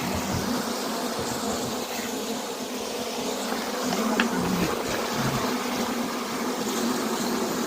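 Many honeybees buzzing steadily in a continuous hum.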